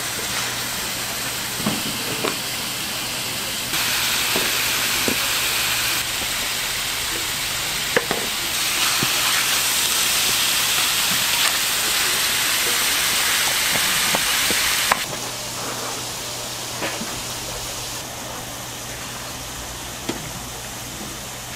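Pork offal sizzling as it grills: a steady hiss with occasional sharp clicks and pops. The hiss abruptly gets louder and quieter several times.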